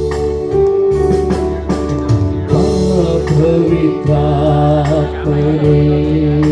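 Worship band music with a sustained keyboard-style pad, bass and steady drum beats, with some singing, between the spoken prayer and the start of the sung verse.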